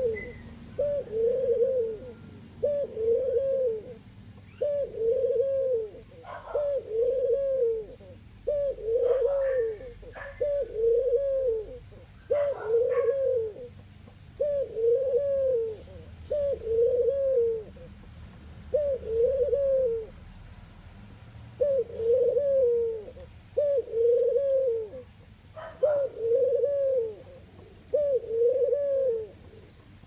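Ringneck dove cooing: a long run of short, arched low coos, about one a second with a few short pauses. A few brief higher chirps come in among them.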